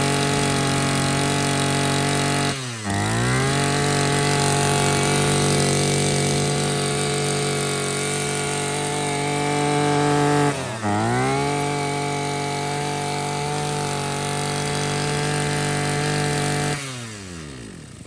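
Small brush cutter engine, already warm, running fast and steady. Twice its speed drops sharply and picks straight back up, and near the end it winds down and stops.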